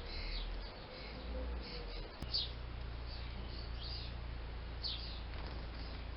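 Small birds chirping, short high calls scattered every second or so, over a steady low rumble, with one sharp click about two seconds in.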